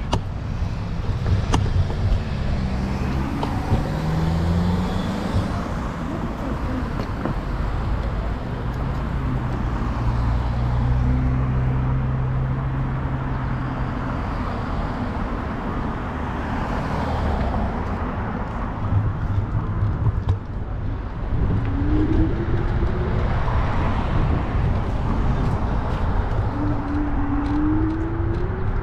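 Urban street traffic: cars passing with engines running over a steady low rumble. A couple of engine tones rise in pitch in the last third.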